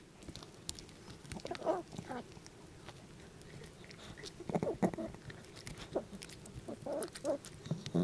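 A small dog chewing and crunching a duck neck bone treat up close, with wet mouth clicks between irregular bouts of crunching. The loudest bouts come about a second and a half in, around four and a half seconds in, and near the end.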